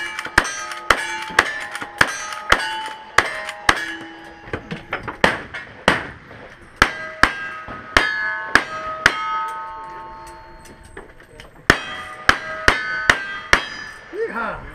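Rapid gunshots from a lever-action rifle and then a single-action revolver, many followed by the ringing clang of a hit steel target. There is a pause of about a second and a half roughly two-thirds of the way through, then another quick string of shots.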